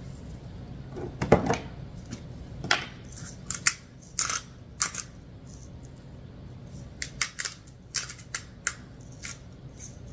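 Pepper grinder being twisted over raw chicken breast, giving short, irregular gritty crunching clicks in bursts, with a louder knock about a second in.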